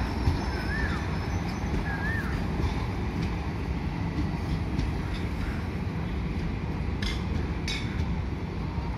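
Train of ICF high-capacity parcel vans rolling past: a steady low rumble of wheels on rail, with a couple of sharp clacks near the end.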